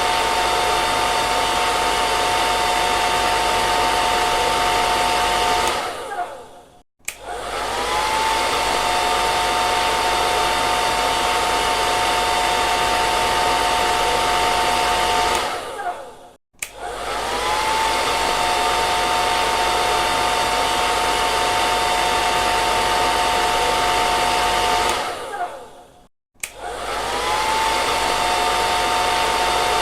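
Hair dryer running with a steady rushing hiss and a two-note motor whine. It cuts out briefly three times, about every ten seconds, and each time the whine slides back up as it comes back on.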